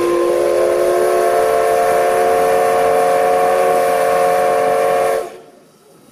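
Steam whistle of the C62 2 steam locomotive blowing one long blast, several tones sounding together as a chord, which cuts off about five seconds in.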